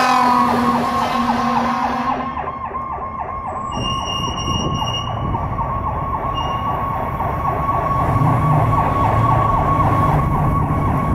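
Fire engine's electronic siren on a rapid yelp, its pitch sweeping up and down several times a second, with the truck's engine rumble growing louder in the last few seconds.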